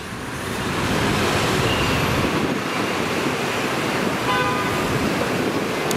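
City street traffic, a steady rush of passing cars, with a short car horn toot about four seconds in.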